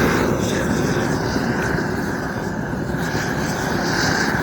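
Gas roofing torch burning with a steady rushing noise, heating a piece of torch-on bitumen membrane.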